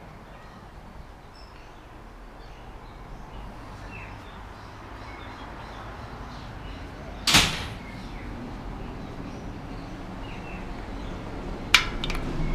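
Security mesh screen door closing with a single bang about seven seconds in, followed near the end by a few sharp clicks, over faint bird chirps.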